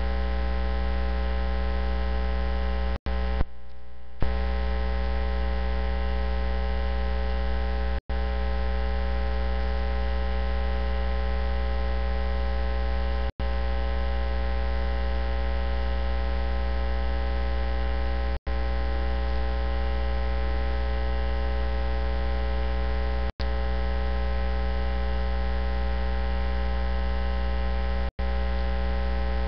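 Loud, steady electrical mains hum with many overtones, carried by the sound feed in place of the microphone's speech. It cuts out for an instant about every five seconds, with a longer dip about four seconds in.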